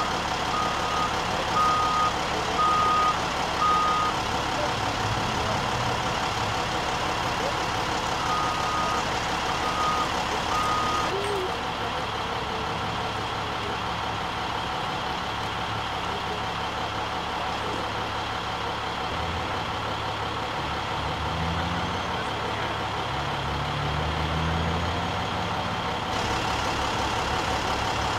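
A heavy truck's engine running, with a reversing alarm beeping at one steady pitch, about one beep every two-thirds of a second, during the first four seconds and again around 8 to 11 seconds in. Later the engine revs up several times, its pitch rising.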